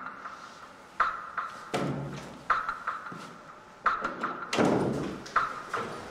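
Slow, regular knocks and thuds from the series' sound track: a sharp ringing tap about every second and a half, with deeper thumps in between.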